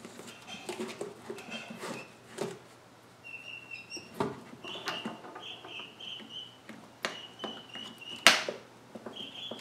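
Clicks and knocks from handling a model engine's wooden base and its battery compartment, with one sharp click near the end. A high, wavering chirping runs through the background from about three seconds in.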